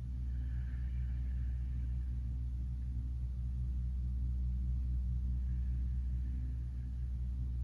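A steady low-pitched hum that holds without change, with no crackling or other sudden sounds.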